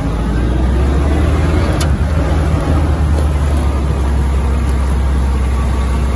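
Old military jeep's engine running as the jeep drives along, a steady low drone under a noisy haze.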